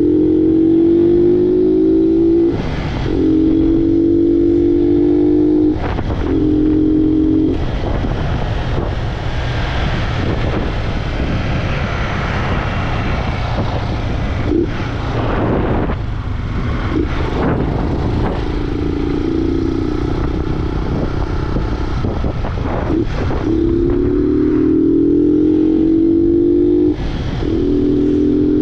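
Honda Fan 125's carbureted single-cylinder engine, running without its air filter, pulling hard through the gears: the engine note climbs and cuts off at each shift, several times. In the middle stretch the engine is quieter and wind noise takes over.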